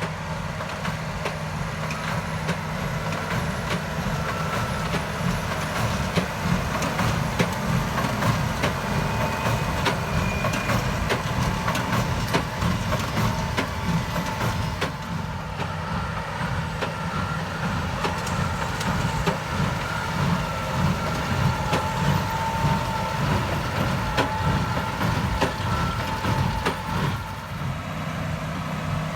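Tractor and hay baler running in the field. A steady engine drone carries on throughout, with a dense, irregular clatter of knocks and clicks from the machinery.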